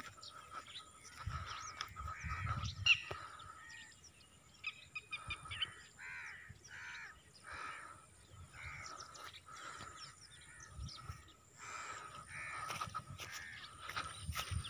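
Crows cawing in runs of short calls about half a second apart, with smaller birds chirping in between.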